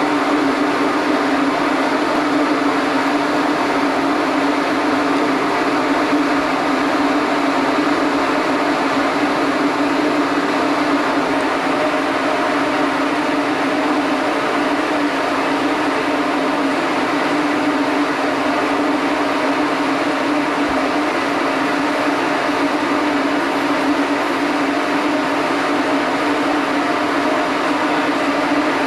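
Steady mechanical drone of a cargo ship's machinery, a constant low hum under an even rushing noise, unchanging throughout.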